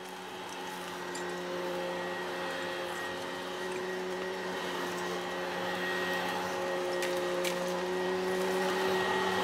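Upright vacuum cleaner running on carpet: a steady motor hum over a rushing hiss, slowly growing louder.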